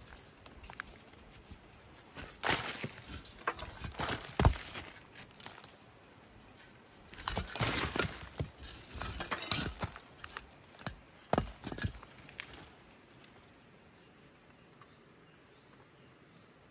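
Fired clay lumps and bricks scraping, knocking and crumbling as they are pulled by hand from the sealed opening of a clay kiln, in three short bouts over the first twelve seconds, the loudest a sharp knock about four and a half seconds in. After that only a faint steady background remains.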